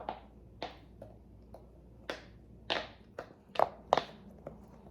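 Bubbles on silicone pop-it fidget balls being pushed in by hand, giving about ten short pops at uneven spacing, the later ones louder.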